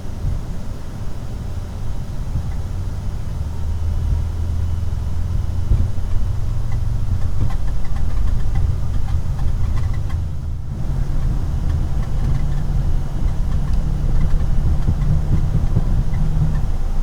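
Embraer E175 jet airliner taking off, heard from under the cockpit dash: a loud low rumble from its twin turbofans and the airframe, with light rattles over it. It grows louder over the first several seconds, dips briefly about ten seconds in, then picks up again.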